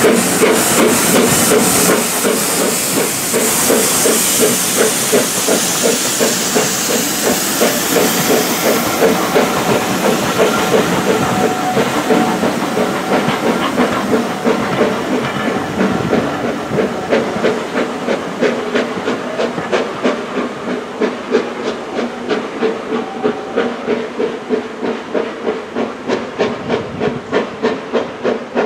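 BR Standard 4 4-6-0 steam locomotive 75078 pulling away with its train, its exhaust beats coming in a steady rhythm throughout. A loud steam hiss fills the first several seconds and fades away after about eight seconds.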